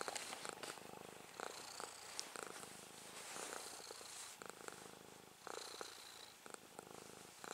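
Domestic cat purring steadily close up while being stroked on the head and chin, the purr swelling and fading every second or two. Soft rustling of fingers in its fur runs through it.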